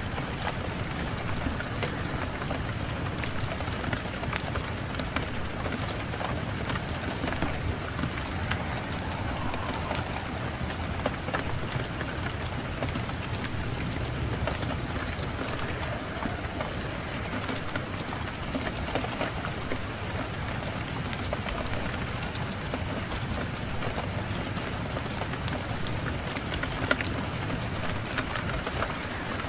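Wood fire in a fireplace crackling with many scattered sharp pops, over a steady low rush of wind.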